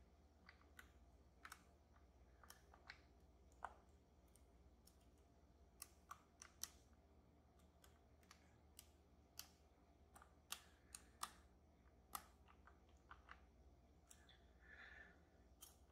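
Faint, irregularly spaced small clicks and ticks of lock-picking tools working the sliders of an EVVA Dual lock, with a short soft rustle near the end.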